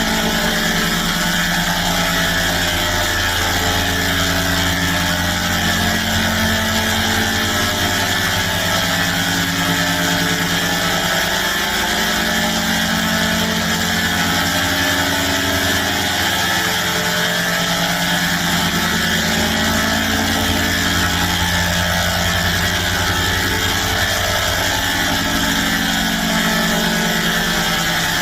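A sustained, buzzing electronic chord drone played as a sound effect, holding a steady loudness while its low notes shift every few seconds.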